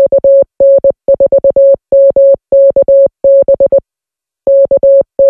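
Morse code sent as a beeping tone of one steady pitch, keyed in short and long elements (dots and dashes), with a brief pause about four seconds in.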